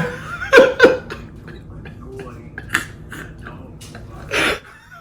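Short, loud bursts of voice: laughs and outbursts, the loudest two close together about half a second in and a breathy burst near the end.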